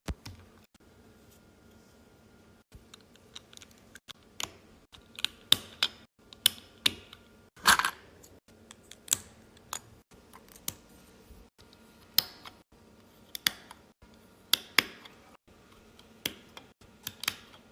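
Lego bricks being handled and pressed together: scattered, irregular plastic clicks and taps, with a louder click about eight seconds in.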